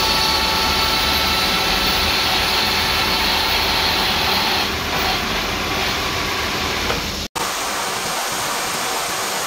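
A horizontal milling machine's disc gear cutter runs steadily as it cuts teeth into a steel spur gear blank under cutting oil. A thin high whine sits in the machine noise and drops away about five seconds in. The sound cuts out for an instant about seven seconds in.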